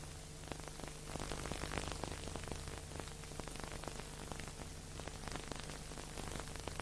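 Steady hiss with dense fine crackle and a low steady hum: surface and transfer noise of an old film copy, with no music or speech.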